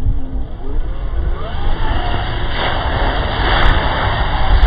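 Traxxas TRX-4 RC truck driving through a muddy puddle: its brushless electric motor whines, rising in pitch over the first couple of seconds, over the hiss and splash of water thrown up by the tyres.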